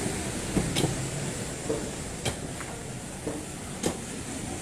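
Steady rush of surf and wind on the beach, with a handful of short sharp knocks scattered through it.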